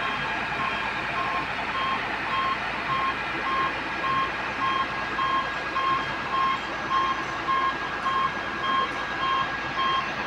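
XCMG XLC250 crawler crane's warning beeper sounding about two beeps a second over the steady running of its diesel engine and hydraulics, the alarm that marks the upper works swinging.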